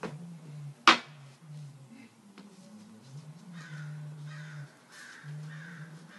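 A single sharp knock about a second in, made during the staff form on the wooden deck. From about three and a half seconds in, a crow caws repeatedly, about two caws a second, over a low steady hum.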